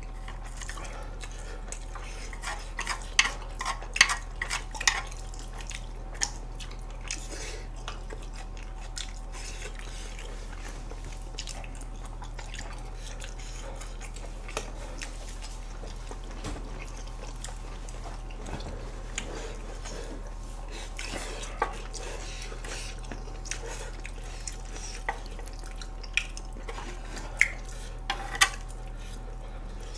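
Wooden chopsticks clicking and tapping against a metal grill plate and takeout containers as food is picked up, in scattered bursts, a cluster a few seconds in and another near the end. A steady low hum runs underneath.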